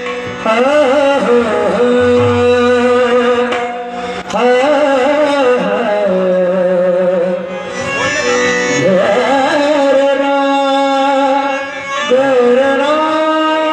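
Qawwali-style devotional singing: a man drawing out long, wavering, wordless notes over a sustained harmonium, in phrases about four seconds long with short breaths between them.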